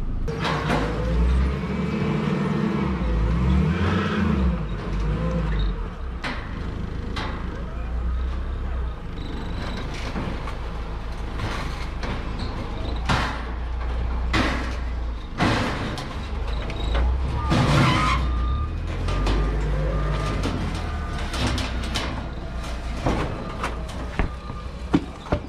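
Vehicle engines running at a scrap yard, with a steady low rumble and many sharp knocks and clatters throughout. A short run of even beeps sounds about two-thirds of the way through.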